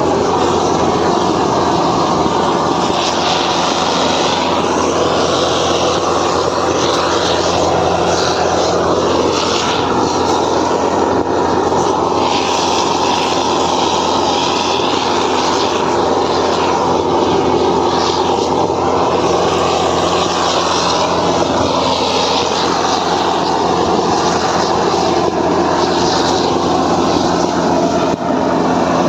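Steady roar of a petrol-fired preheating burner heating the rail ends before the thermite pour, with a steady engine-like drone underneath.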